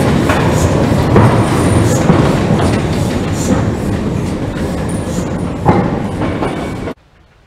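Narrow-gauge steam locomotives rolling slowly past at close range: a steady rumble of wheels and motion with irregular clanks and chuffs, one sharper clank near the end. The sound cuts off abruptly about seven seconds in.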